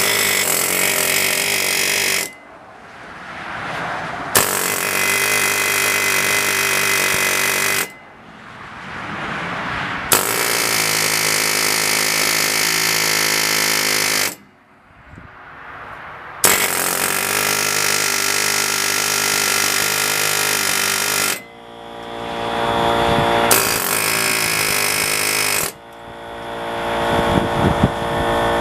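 Pneumatic air hammer with a chisel bit hammering on a stuck truck hub to break it loose. It runs in about six bursts of two to five seconds, with short pauses between.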